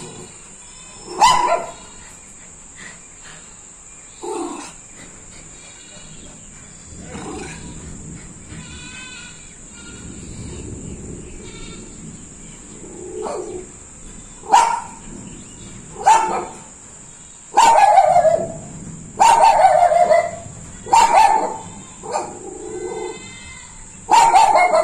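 Indian Spitz barking on guard, single sharp barks. They come a few seconds apart at first, then from about halfway through a run of louder barks about every second and a half.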